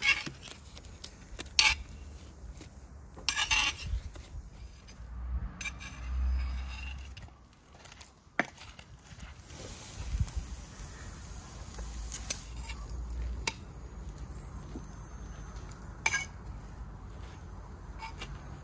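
Steel kebab skewers and a knife clinking and scraping against each other and a wooden board, with a few sharp clinks standing out now and then.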